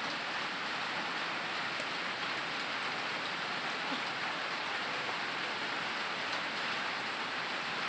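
A steady, even hiss of noise that holds at one level throughout, with no distinct knocks or tones.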